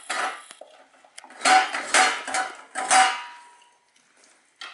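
Dog licking out an emptied stainless steel food bowl, the bowl clanking and ringing under the tongue and muzzle. There is one knock near the start, then a run of about four loud clanks in the middle with a ringing metal tone that fades away.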